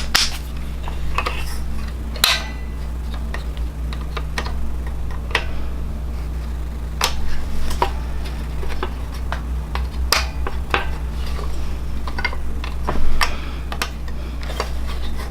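Scattered light plastic clicks and taps as white keys are pried and unclipped from a Korg keyboard's key bed, over a steady low hum.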